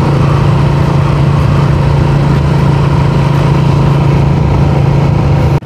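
Motorcycle engine running at a steady pitch while cruising, under an even rush of road and wind noise. The sound drops out abruptly for an instant at the very end.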